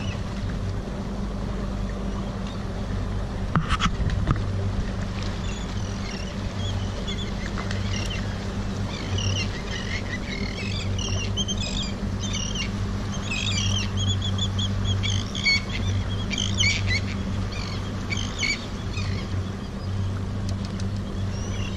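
A boat's outboard motor running with a steady low hum at slow speed. About eight seconds in, a flock of seabirds starts calling in many short, high chirps that go on for roughly ten seconds. There is a brief clatter of knocks about four seconds in.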